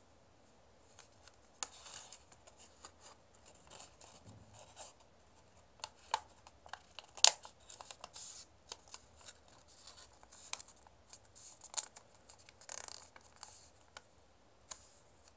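Origami paper being folded and creased by hand: scattered crinkles, rustles and sharp paper crackles, the sharpest about seven seconds in.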